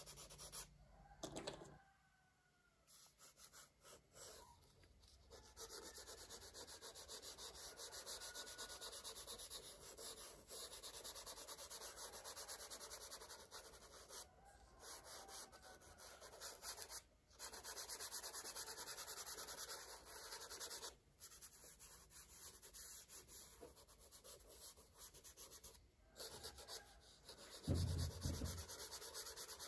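Colour crayon rubbed back and forth on paper in quick shading strokes, a faint steady rubbing broken by a few short pauses. A dull low knock near the end.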